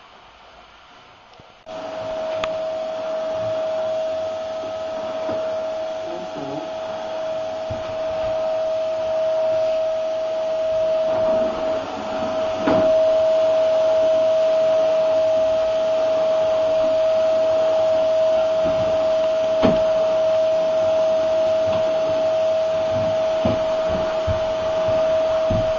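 Canister vacuum cleaner running with a steady high-pitched whine over a hiss, which comes in abruptly about two seconds in, with a few sharp knocks along the way.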